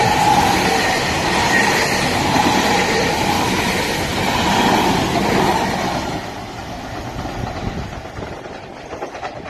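Queensland Rail Electric Tilt Train passing at speed: a steady rush of wheels on rail with clickety-clack and a steady whine. It is loudest for the first six seconds or so, then fades as the train moves away.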